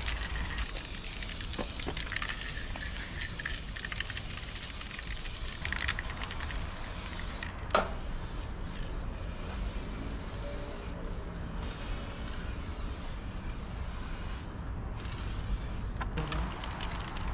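Aerosol spray paint can hissing as paint is sprayed onto a wall in long bursts, stopping briefly several times in the second half. One sharp click comes a little before the halfway point.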